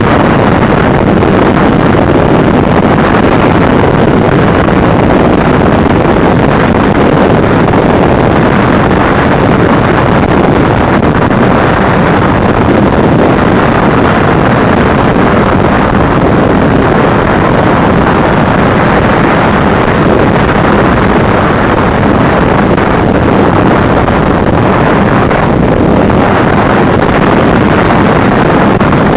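Loud, steady rushing noise of an FPV craft's motors and propellers, with wind buffeting its onboard camera microphone.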